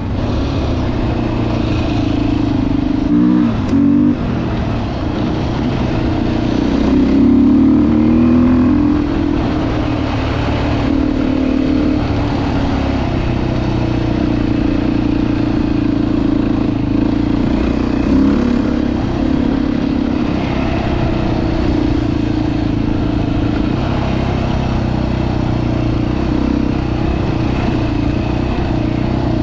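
Single-cylinder four-stroke dirt bike engine running steadily while being ridden. Its pitch rises and falls a little several times as the throttle is worked.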